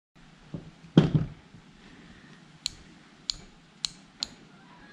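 Small spinning-reel parts being handled and fitted during reassembly: a dull knock and clatter about a second in, then four sharp clicks about half a second apart.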